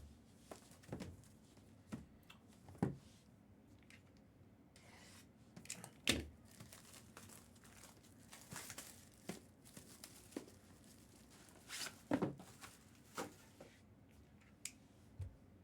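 Packaging of a sealed trading-card box being opened by hand: wrapper tearing and crinkling, with scattered short rustles and clicks, the loudest about three, six and twelve seconds in.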